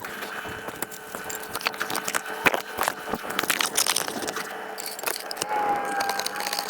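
Clatter of objects being handled and moved aside while rummaging: irregular clicks, knocks and scrapes, with a thin steady tone for about a second near the end.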